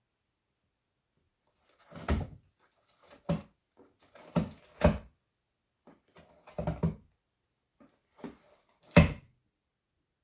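A cardboard box knocking and scuffing as a cat shifts about inside it: about seven short, irregular thumps, the loudest near the end.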